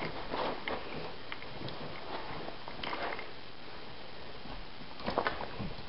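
A few short scuffles and swishes from a kitten playing with a wand toy on carpet, over a steady hiss; the loudest cluster comes about five seconds in.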